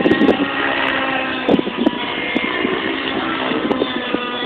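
Radio-controlled 3D helicopter's engine and rotor running at high speed, a steady whine with a slightly wavering pitch. Wind buffets the microphone briefly about a second and a half in.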